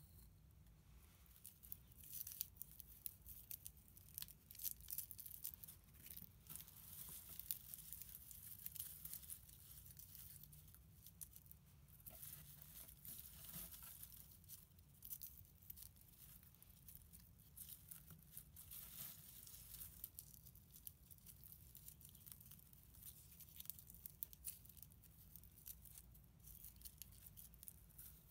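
Faint dry crackling and rustling of fingers pulling apart a clump of small flower bulbs, tearing their dried roots and papery skins.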